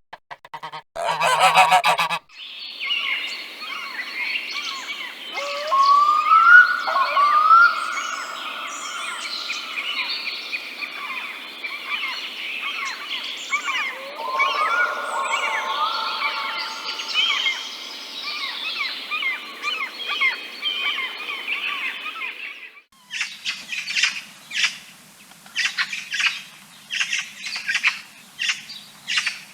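Bird calls from a sound-effects compilation. Loud goose-like honks open it, then a dense flock chorus of many overlapping calls with several rising honks, which cuts off about 23 seconds in. Sharp, separate squawks and chirps repeating every second or so follow it.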